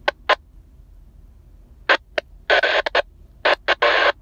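Two-way radio receiver giving short bursts of static hiss that cut in and out several times, with quiet gaps between them.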